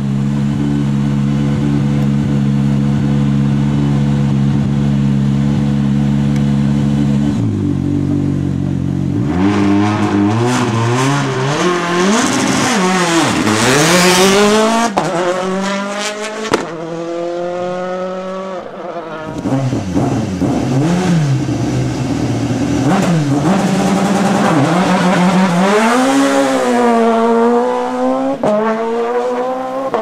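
A rally car's engine idling steadily for the first seven seconds or so. Then rally cars run at full throttle, their engine notes climbing through gear changes and dropping sharply on lift-off, loudest about halfway through and again near the end.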